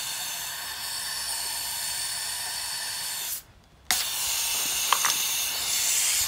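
Compressed air hissing steadily out of the air compressor's leaking pressure-switch hose fitting, a hose cut too long to seal against its ring. The hiss cuts out for about half a second midway, then resumes with a couple of light clicks.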